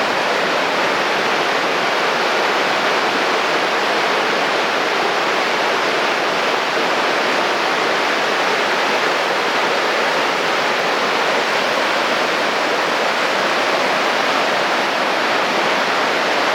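Fast-running creek rushing, a loud, steady wash of water noise with no other sound standing out.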